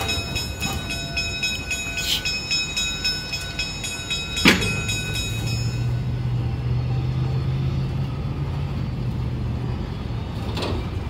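Steam locomotive No. 1455 moving slowly along the track, with steady mechanical running sounds. Several high steady tones run through the first half, a sharp knock comes about four and a half seconds in, and a low steady hum carries on from then.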